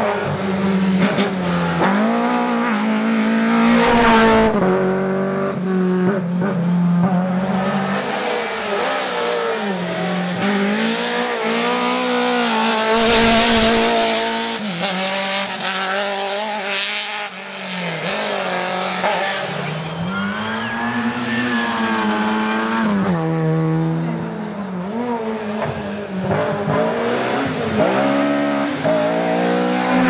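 Rally cars, among them Lada saloons, passing one after another at full throttle, their engines revving up and dropping back again and again through gear changes, with bursts of tyre noise.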